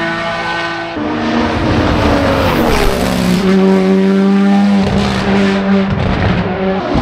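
Hill-climb race car engine coming down the straight and braking for a right-hand bend: about a second in the note drops and slides lower through the downshifts, then holds at a steady lower pitch through the corner, with a change near the end as it gets back on the throttle.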